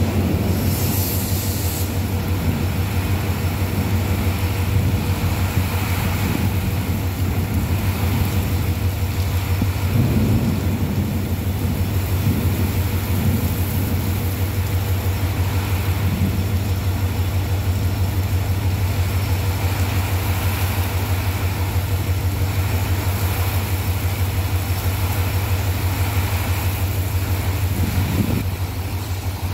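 Engine idling steadily, heard from inside the stationary vehicle, with heavy rain hissing outside.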